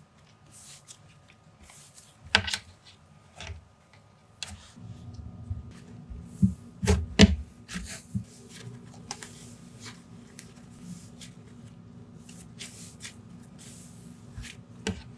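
Hands squishing and stretching a soft cloud cream slime, giving irregular crackling sizzles and small pops, with a few louder squelches.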